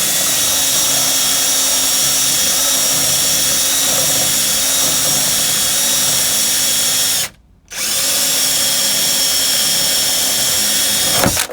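Power drill boring a 3/4-inch hole through a wooden cabinet door with a Forstner bit, running at a steady speed with a motor whine. It stops briefly about seven seconds in, then runs again for a few seconds and stops near the end.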